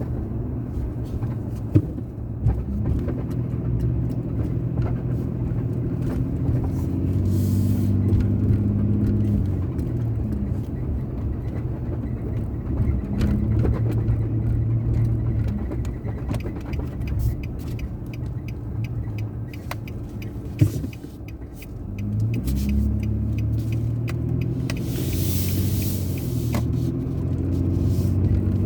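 A car's engine and road noise while driving, the engine note rising and settling as the car speeds up and slows. About two-thirds through it eases off almost to a stop, then pulls away with a rising engine note. There is a sharp knock about two seconds in and another just before the slowdown, and a brief hiss near the end.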